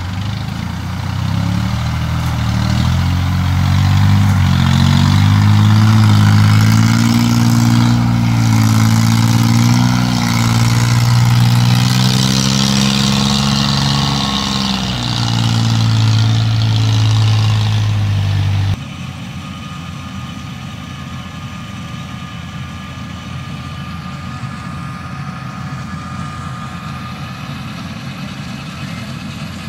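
Small rice combine harvester's engine running close by, its pitch rising and falling as it labours through a boggy rice paddy. About 19 seconds in the sound cuts off abruptly to a quieter, steady engine drone from the same machine farther away.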